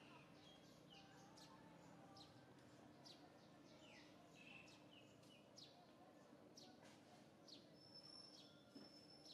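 Faint background of a bird chirping: short notes falling in pitch, about two a second, over a low hiss. Near the end a thin, steady high tone comes in.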